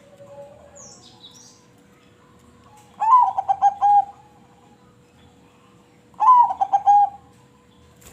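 Crossbred zebra dove (perkutut) singing: two phrases of quick staccato coos, each about a second long and some three seconds apart.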